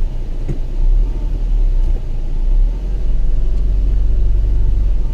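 A stopped car's engine idling, heard from inside the cabin as a steady low rumble.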